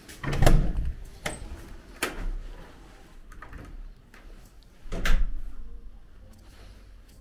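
A door being handled: a heavy thump about half a second in, lighter knocks after it, and another loud clunk about five seconds in, in a small room.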